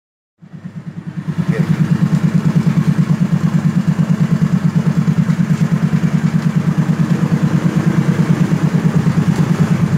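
Yamaha Mio Sporty scooter's single-cylinder four-stroke engine idling with a steady, even low putter. It fades in over the first second or so.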